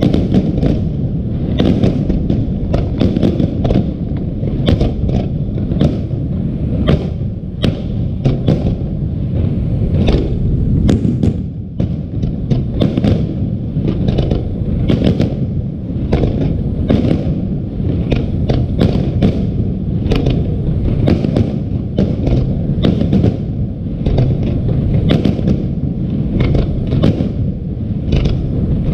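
Fireworks going off in rapid succession, several sharp bangs a second over a continuous low rumble.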